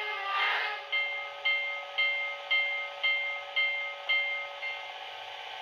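Sound from the ESU LokSound decoder through the speaker of an HO-scale Rivarossi Virginian Blue Ridge steam locomotive: a last exhaust chuff, then the locomotive bell ringing about twice a second, over a steady hum. The bell stops near the end.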